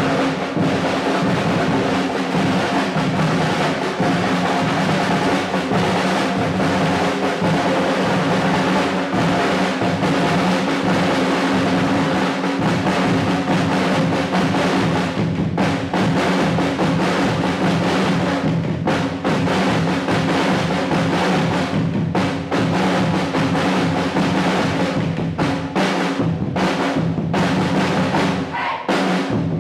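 Chinese ensemble drumming in the 24 Festive Drums style: large barrel drums and snare drums struck with sticks in a dense, continuous rhythm, dipping briefly just before the end.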